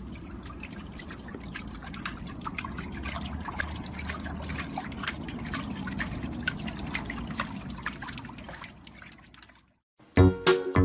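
Splashing, trickling liquid with many small irregular drips and clicks, cutting off suddenly near the end.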